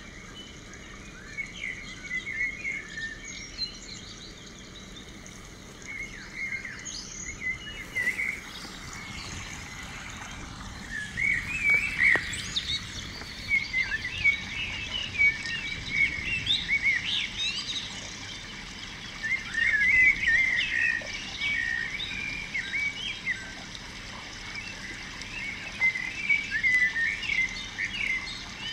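Several birds chirping and calling in quick, short notes, often overlapping, over a steady background hiss.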